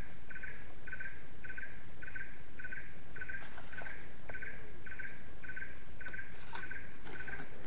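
Insect chorus in a swamp: one caller repeating a short, high pulsed note about twice a second in a steady rhythm, over a faint continuous high whine.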